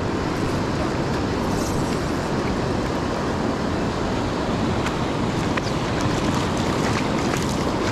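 Steady rush of a fast river running over rapids and gravel riffles.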